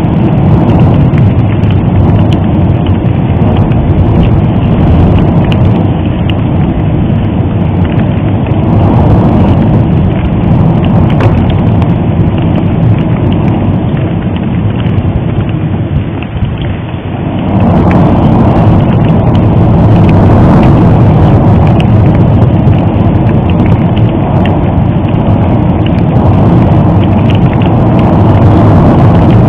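Loud, steady low rumble of a volcanic eruption, with faint crackling over it, dipping briefly about seventeen seconds in.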